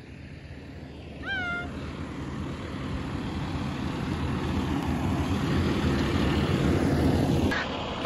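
Fire engine running, its low rumble building steadily over several seconds and cutting off abruptly near the end. A short squawk from the hyacinth macaw about a second in.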